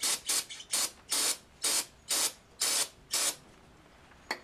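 Aerosol cleaner sprayed in a run of short hissing bursts, about two a second, to degrease the parts of hydraulic fluid before applying Loctite. One sharp click comes near the end.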